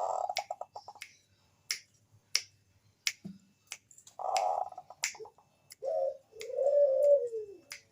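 Zebra dove (perkutut, Bangkok type) singing. It gives a rattling trill that breaks into quick pulses, twice, then drawn-out cooing notes, the last one falling in pitch. Sharp clicks sound throughout, about one every half second to second.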